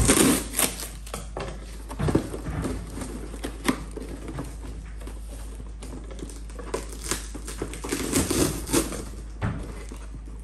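Cardboard carton wrapped in plastic film being cut open with scissors and its flaps pulled open: plastic crinkling and cardboard rustling and scraping in irregular bursts, with small clicks.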